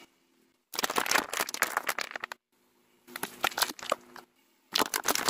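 A car tyre rolling over and crushing small objects, making dense crackling and crunching. It comes in three separate bursts with abrupt silent gaps between them.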